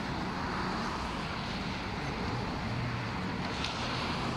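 Steady drone of distant racing jetboat engines, heard as a low hum under a constant outdoor noise, with no single pass standing out.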